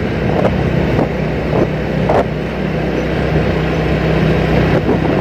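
Motorcycle engine running at a steady cruise under a continuous rush of road and wind noise, with a few light knocks.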